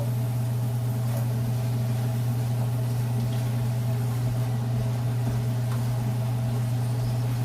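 A steady low motor hum, like a kitchen appliance or exhaust fan running, over a faint even hiss and a few light crackles from oil frying.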